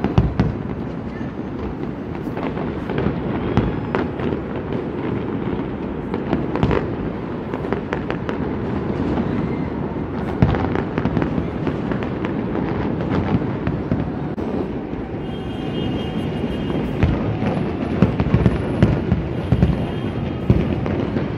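Many fireworks going off at once across a city: a continuous rumble of overlapping distant bangs, with sharp cracks standing out and coming thickest near the end.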